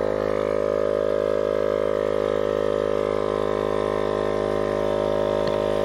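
Tower Top M2 12-volt portable tire inflator running with a steady hum, pumping air into a car tire toward its 43 psi set point.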